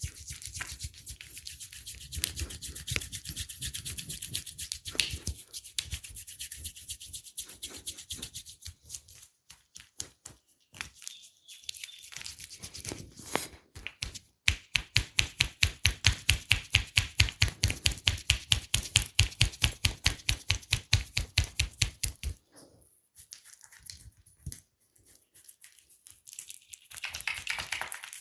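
Hands massaging skin: a steady rubbing and scrubbing, then just past the midpoint a quick, even run of pats or slaps at about five a second that lasts some eight seconds.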